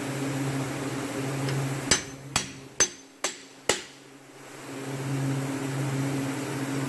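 Five sharp hammer taps on a small pin punch, about two a second, driving a spile into a hole in an oak wine barrel to plug a leak at the croze.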